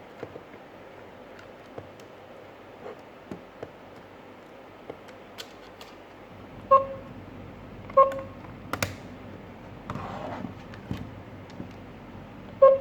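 An electronic device gives three short, fairly low beeps: two about a second apart halfway through, and a third at the very end. Small clicks and taps, like buttons being pressed and the device being handled, run throughout.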